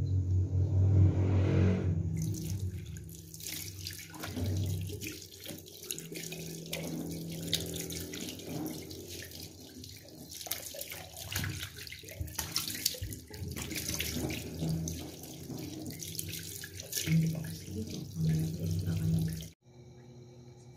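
A low hum for the first two seconds, then water running from a tap into a sink with uneven splashing, which stops abruptly near the end.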